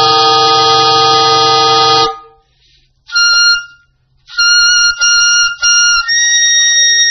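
Soprano saxophone playing a dense, buzzing multiphonic that cuts off abruptly about two seconds in. After a short silence come short, very high notes broken by brief gaps, then a held, very high note with a faint wavering undertone near the end.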